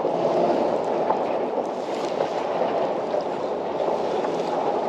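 Steady rushing noise of wind and choppy water around a kayak, even and unbroken, with no distinct events.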